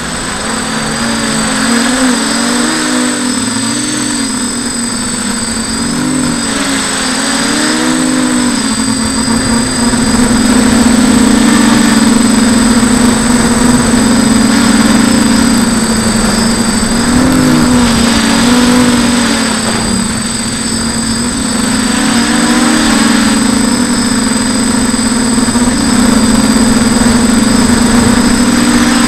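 TBS Discovery quadcopter's four brushless motors and propellers buzzing, heard from the camera on board, the pitch rising and falling as the throttle changes, over a hiss of rushing air.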